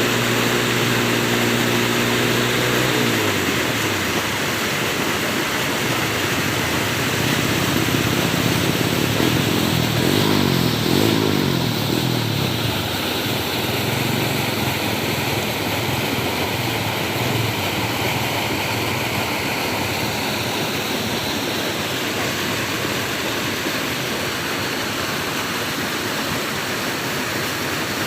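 Steady rush of flowing water. A motor's hum fades out about three seconds in, and a second passing engine, its pitch falling, is heard around ten seconds in.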